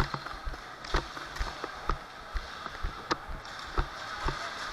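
A string of short, irregular thuds and sharp clicks, roughly two a second.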